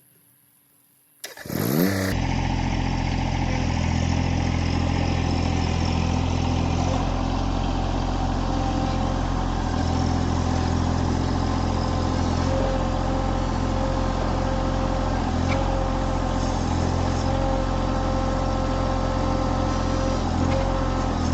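Holzfforma G660 92 cc chainsaw (a Stihl 660 replica) revs up sharply about a second in, then runs loud and steady at a constant speed.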